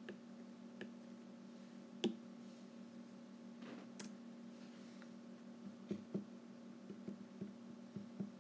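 Stylus taps and knocks on a tablet's glass screen: about a dozen scattered clicks, the loudest about two seconds in and a closer run of them near the end, over a steady low hum.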